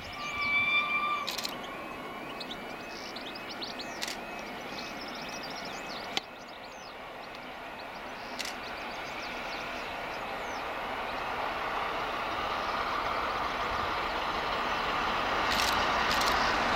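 Peppercorn A1 Pacific steam locomotive 60163 Tornado approaching at speed with its train. A single short whistle sounds about a second in. The train's noise then grows steadily louder as it nears.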